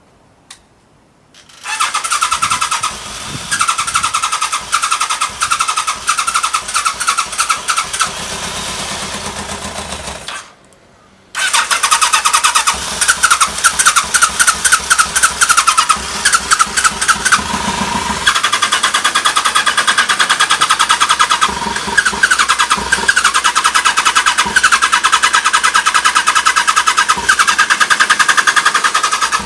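Kawasaki ZRX1200 DAEG's inline-four engine started on the electric starter and running, shut off for about a second near the middle, then started again and running on; it starts readily with no abnormal noise.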